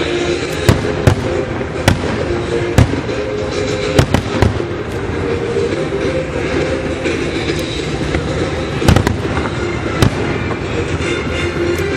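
Aerial fireworks: a continuous dense crackle and rumble of bursting shells, with about nine sharp, loud bangs standing out at uneven intervals.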